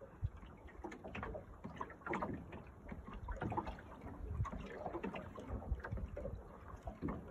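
Wind buffeting the microphone beside choppy lake water, with small waves lapping in uneven surges.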